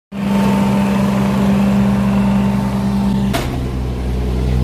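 Engine of a Ditch Witch 1550 compact track loader running steadily with a constant hum. About three and a half seconds in there is a sharp knock, after which a lower, steady engine note takes over.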